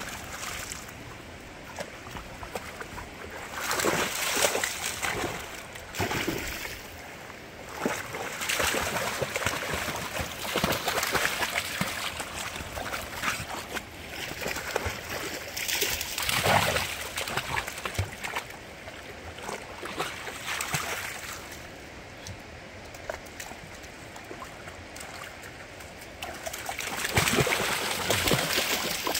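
Dogs wading and splashing in a fast-flowing creek over the steady rush of the current, with louder bouts of splashing several times.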